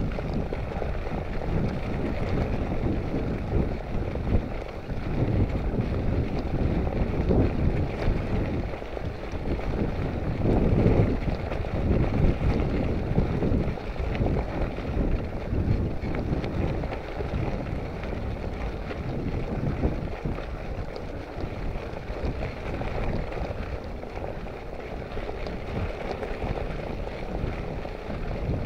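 Wind buffeting the microphone of a camera riding along on a moving bicycle: a low rumbling rush that rises and falls unevenly, loudest about halfway through.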